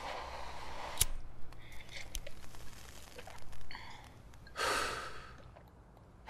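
Soft breathing with a sharp click about a second in and small scattered handling noises, then a clear outward breath like a sigh, lasting about half a second, a little before the end.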